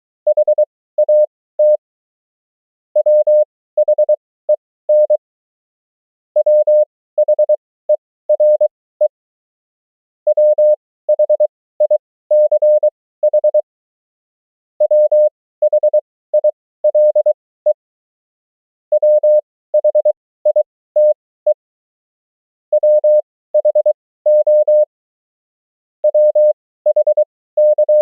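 Morse code (CW) sent as a single pure tone, keyed in quick dots and dashes at 20 words per minute with characters at 23 wpm. Each group of characters is a common amateur-radio word or abbreviation, and the groups are separated by pauses of a second or more.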